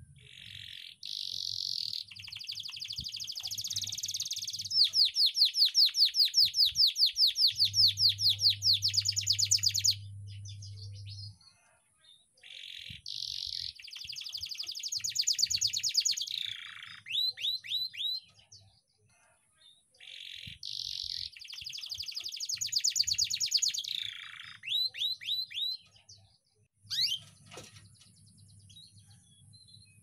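Young domestic canary singing in three long phrases built of fast rolling trills of rapidly repeated notes, each phrase ending in a few quick downward-sweeping notes, with a short single note near the end.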